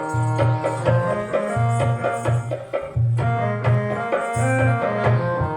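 Instrumental music with no singing: a drum beat under a melody of held notes that step from one pitch to the next.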